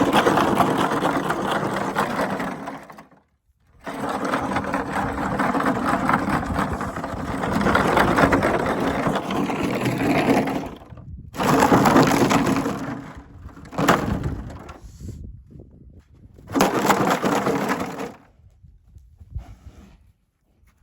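A mare snorting while playing: loud, rattling blasts of breath through fluttering nostrils. They come in several long stretches with abrupt breaks, then shorter bursts that fade out near the end.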